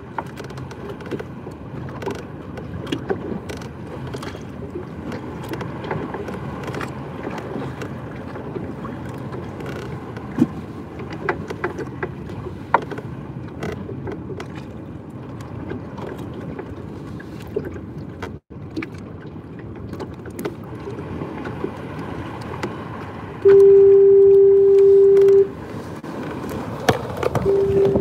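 A loud steady single-pitch tone sounds twice near the end, each about two seconds long, over a low background rumble with scattered knocks and clicks.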